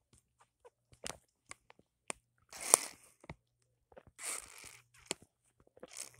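Plastic drink pouch crinkling as it is handled: scattered small clicks and crackles, with short rustling bursts about two and a half and four seconds in.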